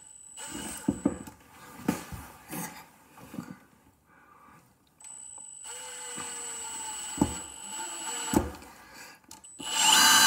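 Milwaukee M18 FUEL impact driver driving a screw into wood: a few knocks as the bit and screw are set, then a steady high-pitched motor whine for a few seconds. Near the end the impact mechanism starts hammering loudly.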